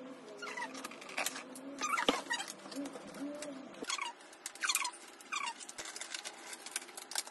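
Scissors cutting into stiff clear plastic knife packaging, with rapid crackling and clicking of the plastic and several short, squeaky falling sounds as the blades bite and slip.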